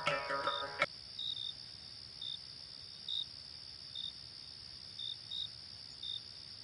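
Crickets and other night insects: a steady high trill with short chirps repeating about once a second. Music cuts off abruptly under a second in.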